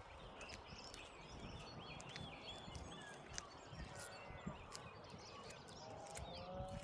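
Morning birdsong: several small birds chirping and whistling in quick, overlapping calls over a faint low background rumble, with a lower drawn-out call near the end.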